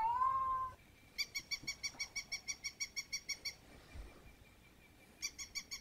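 A cat's drawn-out meow at the start. Then a battery-operated toy puppy gives two runs of rapid, even electronic yips, about seven a second, with a pause between them.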